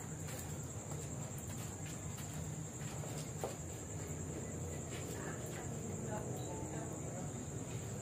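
Insects trilling steadily at one high pitch, with a low steady hum underneath and a few faint clicks.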